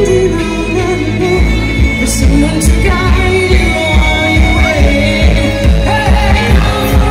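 Live pop music over a large outdoor PA system: a woman sings lead over synths, and a steady kick-drum beat comes in about a second and a half in.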